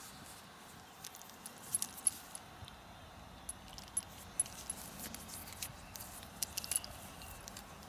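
Irregular small clicks and light clinks of a Coros Vertix smartwatch being handled, its strap fittings and case tapping together as the rubber strap is turned and flexed by hand.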